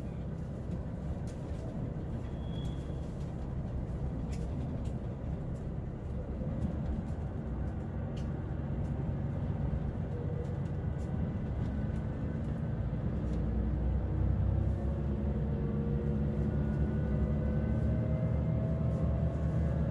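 Steady low rumble of a moving vehicle heard from inside, with an engine or motor whine that starts rising in pitch about two-thirds of the way through as the vehicle speeds up.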